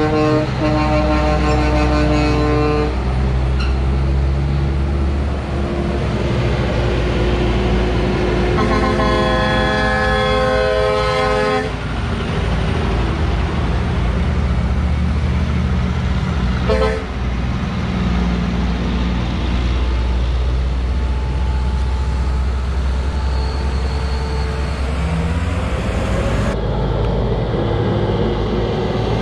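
Heavy diesel tractor-trailers running slowly through a tight curve, their engines a steady low rumble. An air horn sounds through the first three seconds, a longer air-horn blast of several tones comes around nine to twelve seconds in, and a short toot follows near seventeen seconds.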